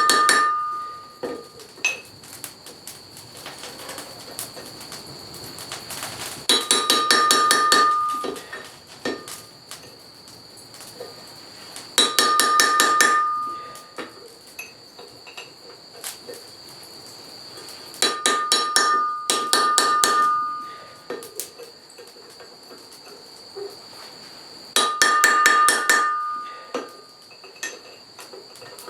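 Blacksmith's hand hammer striking iron on an anvil in bursts of rapid blows, about five bursts roughly six seconds apart, each ringing sharply. A steady high-pitched whine carries on between the bursts, along with small clinks.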